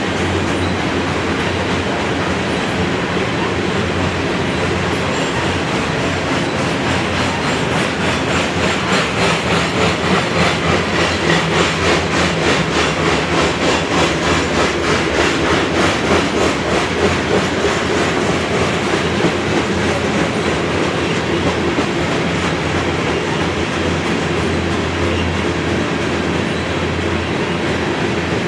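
Norfolk Southern unit grain train of hopper cars rolling past at track speed, with a steady rumble. In the middle stretch its wheels click rhythmically over the rail joints, about two beats a second.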